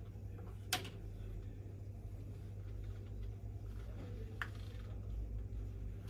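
Quiet supermarket room tone: a low steady hum, with two sharp clicks, one just under a second in and a smaller one a little past four seconds.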